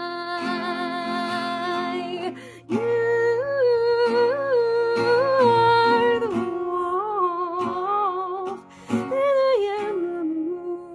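A woman sings long wordless notes with vibrato, stepping up and down in pitch, over a strummed acoustic guitar with a capo. The singing breaks off briefly twice.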